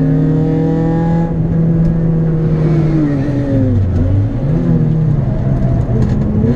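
Citroën Saxo VTS's 1.6-litre 16-valve four-cylinder engine heard from inside the cabin, holding steady revs; about four seconds in the revs dip and climb back during a gear change.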